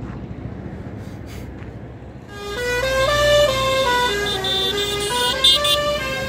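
Vehicle on the road running with a low rumble. About two seconds in, a musical multi-tone vehicle horn starts playing a tune of held notes that step up and down in pitch, louder than the engine.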